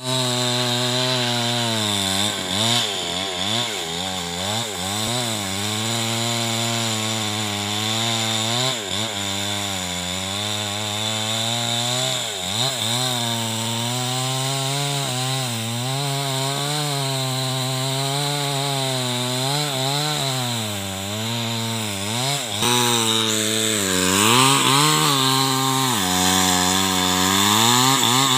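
Small two-stroke chainsaw running under load as it cuts into the trunk of a large albasia tree, its engine note dipping and rising as the chain bites. It gets a little louder with more chip noise over the last few seconds.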